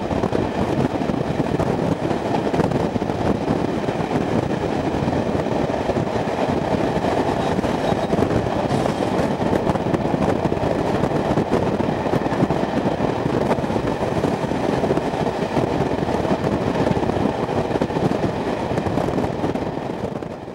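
Steam-hauled train of coaches behind BR Standard 2-6-4T tank locomotive 80079 running along, heard from an open carriage window as a steady, dense rumble. It fades out at the very end.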